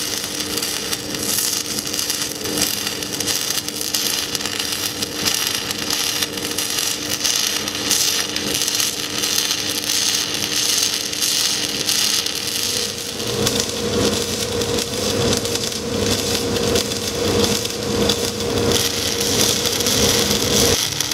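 Pulsed stick-welding arc crackling and sizzling steadily as a 1/8-inch 6010 electrode burns at 120 amps, the pulse set at 1.5 Hz.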